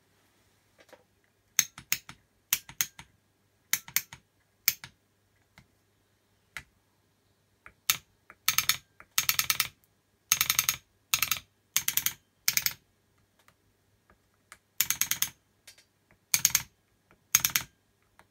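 Solenoid valves of an air-ride valve block clicking and buzzing as the controller buttons are pressed. Short sharp clicks come first, then from about eight seconds in, longer buzzing bursts in quick runs.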